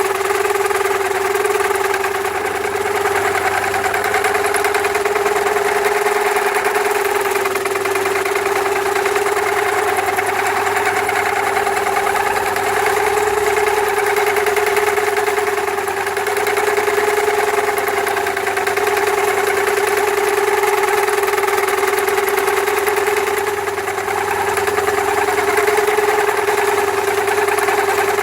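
Home-made mill built from a Clark pillar drill, running under load as its cutter mills full depth through 5 mm steel: a steady hum with a rough cutting noise over it.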